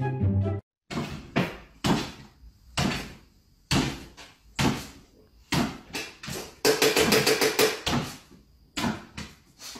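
Small dog jumping up and down on its hind legs, its paws knocking on a wooden floor about once a second, with a quicker run of knocks about two-thirds of the way through.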